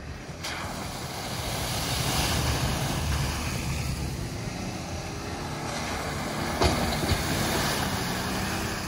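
Off-road SUVs, a Toyota 4Runner and then a Jeep Wrangler, driving slowly through a muddy puddle on a dirt track: a steady noisy mix of engine rumble and tyre noise, with one sharp knock about six and a half seconds in.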